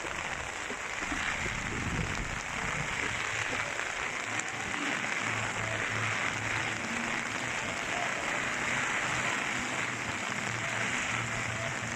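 Steady hiss of typhoon rain pouring down, with faint low humming tones coming and going from about five seconds in.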